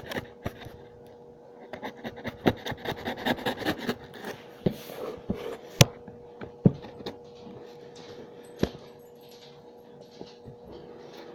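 Cardboard box being cut open and handled: a few seconds of scraping and rubbing on cardboard with small clicks, then several sharp separate knocks.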